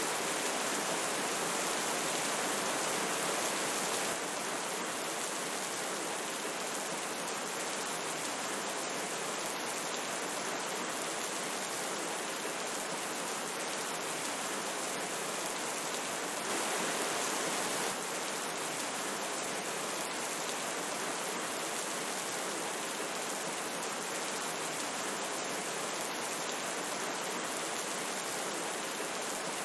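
Steady rain mixed with flowing river water, an even hiss. It is a little louder for the first four seconds and again briefly past the middle.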